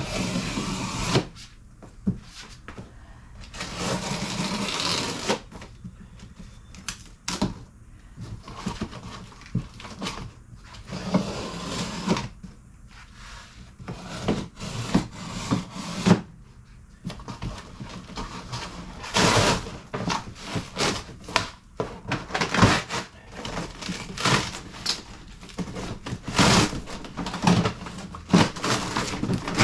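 A large cardboard shipping box being cut open with a box cutter and its packing pulled apart by hand: irregular scraping, tearing and rustling with occasional knocks.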